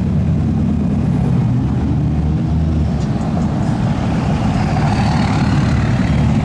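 Road traffic of cars and trucks driving past: a steady, loud, low engine rumble with road noise over it.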